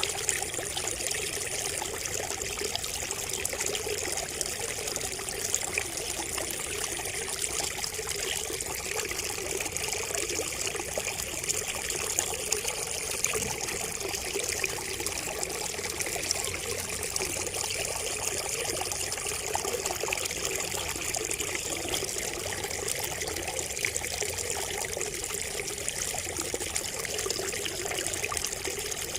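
Water trickling and splashing steadily from a bamboo spout, a continuous even gurgle with no pauses.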